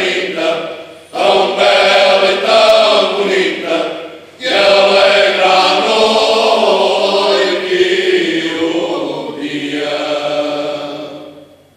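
Traditional Alentejo choral song (cante alentejano) sung unaccompanied by a choir, in long held phrases that break off briefly about a second in and again around four seconds in, then fade out near the end.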